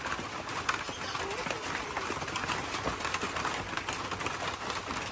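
Steady rain pattering: an even hiss dense with small drop ticks.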